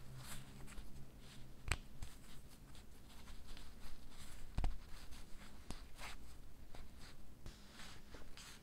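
Small brass blow-torch parts handled in gloved fingers: quiet rubbing and scratching with scattered small metal ticks, and two sharper clicks, one just under two seconds in and one about halfway.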